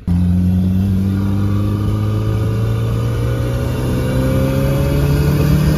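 1976 MGB's turbocharged four-cylinder engine pulling hard under boost with its wastegate zip-tied shut, the pitch rising steadily as the car accelerates.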